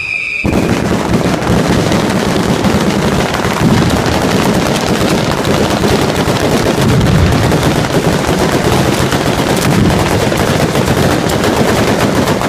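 Ground-fired Italian fireworks barrage (batteria alla bolognese), a dense, rapid, continuous string of firecracker bangs like machine-gun fire, starting about half a second in.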